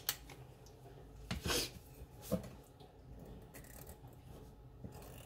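Quiet handling of paper and stationery on a desk: a click at the start, a short scratchy rasp about a second and a half in, and a soft tap a little later.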